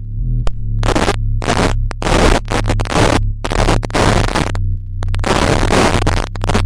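Electronic music: a low synth drone of held bass notes, with harsh static-like noise cutting in and out in chopped bursts from about a second in.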